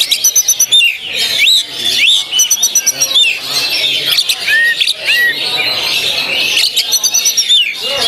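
Oriental magpie-robin (kacer) singing loudly in full burst: a dense run of rising and falling whistled slurs broken by quick rattling series of repeated notes, several times over.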